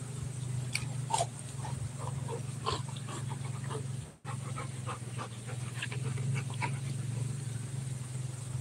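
Rottweiler panting close up, with a steady low hum underneath.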